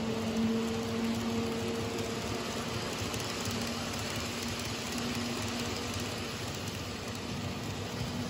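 N-scale model freight cars rolling along sectional track, a steady fine rattle of small wheels on rail with a low rumble. A steady hum runs under it, strongest in the first couple of seconds.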